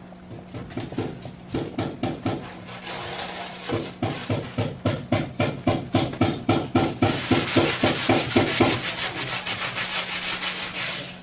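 A hand tool worked back and forth on wood, in rhythmic strokes about three a second. Near the end the strokes turn into a quicker, continuous scraping.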